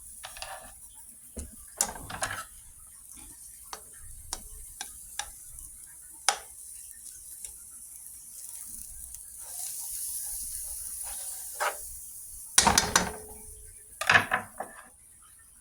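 Chopped garlic and thyme sizzling in hot butter in a pan, a steady high hiss that swells briefly partway through. Scattered clicks and scrapes of a utensil against the pan run over it, with a louder clatter twice near the end.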